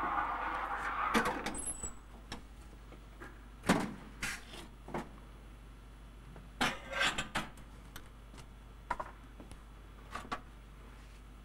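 Scattered knocks and clinks of cups, metal jugs and an espresso machine being handled. A steady hissing noise dies away in the first second or two.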